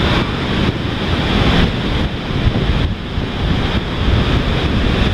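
Wind buffeting the microphone in a loud, gusting rumble, over the steady wash of Pacific Ocean surf breaking on a sandy beach.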